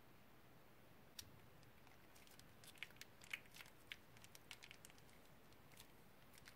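Faint crinkling of a plastic piping bag and small sticky clicks as slime is squeezed out of it; the clicks bunch up about two to five seconds in, with one sharper click at the very end.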